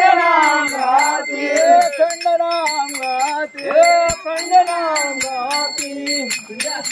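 Music: a voice singing a devotional song, with small hand cymbals jingling on a steady quick beat.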